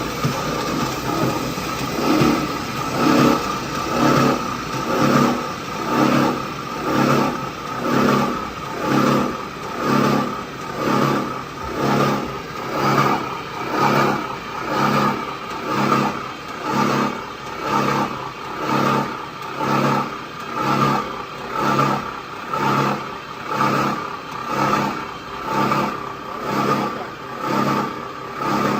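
CNC flanging and punching machine running: a steady mechanical hum with a whine that swells and fades in a regular cycle about once a second.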